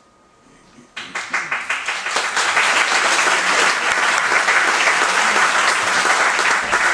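Audience applauding: the clapping starts suddenly about a second in and quickly builds to steady, dense applause.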